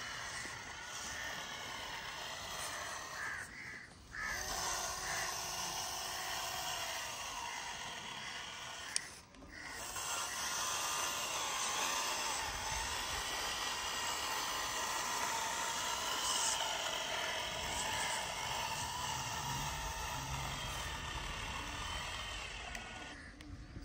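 Small motor and gearbox of a handmade scale-model Massey Ferguson 385 tractor whining as it pulls a tine cultivator through sandy soil, the pitch wavering up and down with the load. The sound drops out briefly twice.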